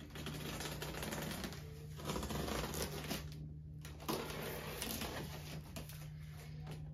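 Large cardboard shipping box being cut and opened by hand: crackling, scraping and rustling of cardboard and packing tape, with a short lull about three and a half seconds in.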